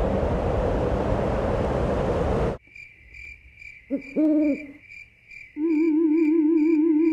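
Soundtrack sound effects: a steady rushing noise that cuts off suddenly about two and a half seconds in, then a faint high chirp repeating about twice a second, an owl hooting briefly about four seconds in, and a warbling electronic tone that starts just after halfway and holds.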